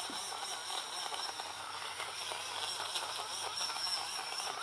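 Portable battery-powered mini blender running steadily, its small motor spinning the blade through a smoothie of frozen pineapple, orange juice and water to break up the last chunks.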